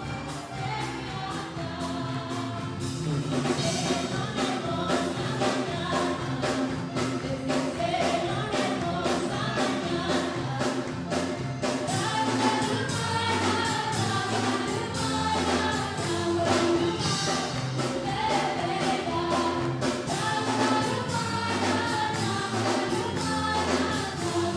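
A church congregation singing a hymn together with musical accompaniment over a steady beat.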